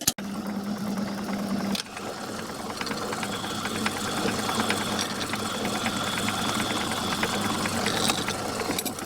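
Myford lathe running with a steady mechanical gear chatter while a centre drill is fed into a small brass-sized workpiece to start a spoke nipple. A low hum drops out about two seconds in, and a faint thin whine rises over the chatter for several seconds in the middle.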